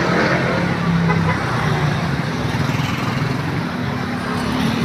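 Street traffic: vehicles running past on a busy road, a steady low engine hum over road noise.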